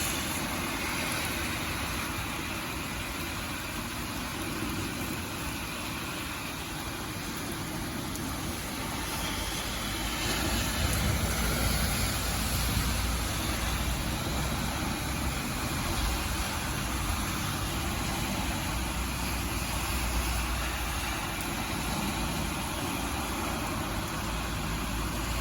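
Steady rainfall, an even hiss, with a low rumble underneath that grows louder about ten seconds in.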